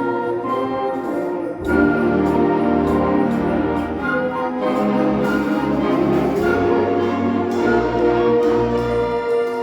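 Symphonic band playing held chords, brass and woodwinds over low bass notes that come in about two seconds in.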